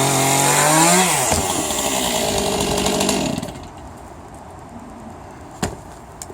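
Two-stroke chainsaw running, its engine speed rising and falling, then stopping about three seconds in. Two sharp clicks follow near the end.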